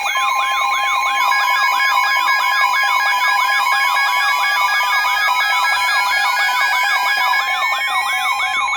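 Emergency Alert System attention signal on FM radio, just ahead of a severe thunderstorm warning: steady alert tones layered with a fast siren-like warble of about three or four sweeps a second, and a tone that rises slowly from about halfway.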